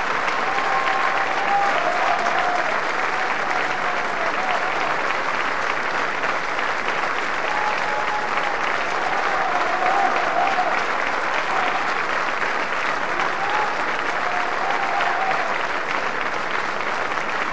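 Live theatre audience applauding steadily, with a few faint voices calling out above the clapping.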